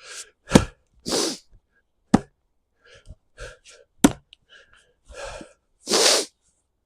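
Axe striking a log three times, sharp cracks a second and a half to two seconds apart, into a piece whose grain twists through it so it won't split cleanly. Between swings comes a man's hard, forceful breathing.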